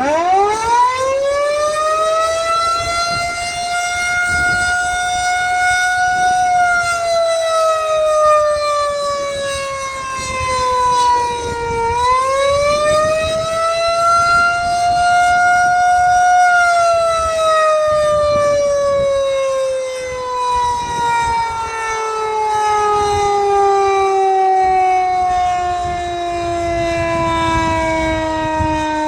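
Federal Signal 2001-130 electromechanical outdoor warning siren sounding an attack signal. It winds up to a high howling tone over the first few seconds and sags once, rising back to full pitch about halfway through. It then winds down in a long, slow falling tone.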